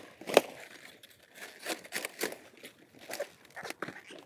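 Crisp leaves of a Danish-type storage cabbage crackling, snapping and tearing as a head is worked free of the plant, with a sharp snap about half a second in and smaller irregular crackles after it.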